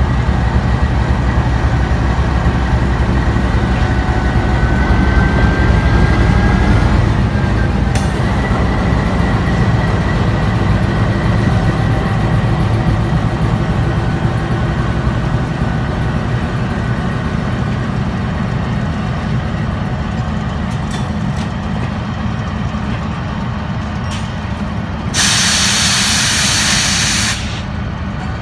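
GEU-20 diesel-electric locomotive running under power as it pulls a passenger train away, its engine drone loudest early on and easing as it passes, then coaches rolling by on the rails. About 25 seconds in, a loud hiss of air lasts about two seconds.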